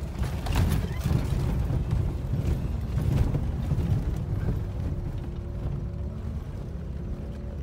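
Vehicle driving over a rough, rocky desert trail: a low engine rumble with frequent knocks and rattles from the bumpy ground, and a faint steady engine tone coming through about halfway in.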